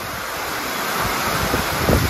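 Heavy rain falling in a steady hiss, with wind buffeting the microphone in gusts, the strongest near the end.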